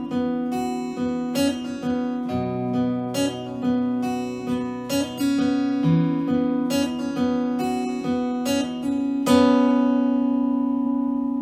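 Acoustic guitar strummed through a song's closing bars, ending on a final chord about nine seconds in that rings out and fades.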